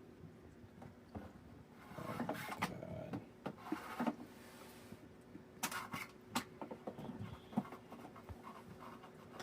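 A cat scratching and rustling in a cardboard box: irregular scrapes, rustles and sharp taps, busiest a couple of seconds in and again in short bursts past the middle.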